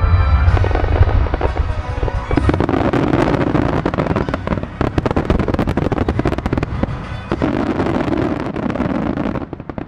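Finale of a melody-fireworks show: a dense barrage of shell bursts and crackling, played against music, stopping abruptly near the end.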